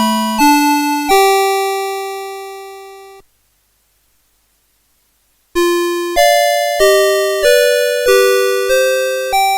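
Melody chip of a 1990s Citizen Melody Box 30 alarm clock playing a tune in electronic beep tones, each note struck sharply and fading. One tune ends on a long fading note about a second in, there are about two seconds of silence, and the next tune starts near the middle.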